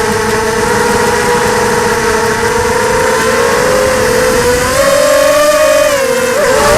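ZMR 250 quadcopter's brushless motors and propellers whining in flight. The pitch holds steady, rises about four to five seconds in, then wavers up and down near the end as the throttle changes.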